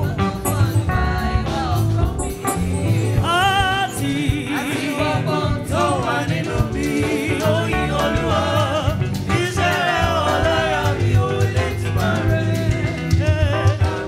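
Gospel choir singing with band accompaniment, over a steady bass line.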